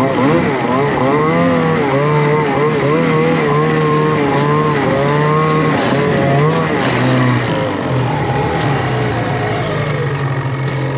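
Ski-Doo snowmobile engine, heard from the rider's seat, revving up and down over and over as the rider works the throttle through the snow, then falling in pitch to a lower, steady running for the last few seconds as the sled slows.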